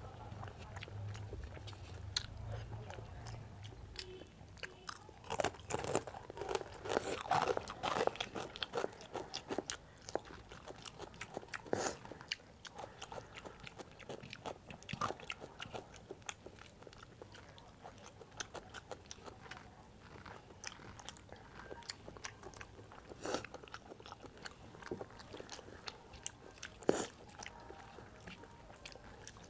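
Close-miked eating: a person chewing by mouth, with a dense stretch of crunching fried papad about five to nine seconds in, then scattered crunches, clicks and smacks of chewing.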